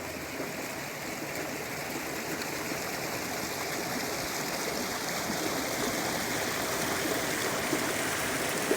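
Running water of a mountain stream, a steady rush that grows slowly louder.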